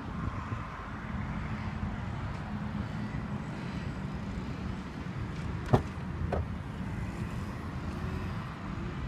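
Nissan Leaf tailgate being opened: a sharp latch click a little past halfway through, then a second, lighter click as the hatch lifts, over a steady low outdoor rumble.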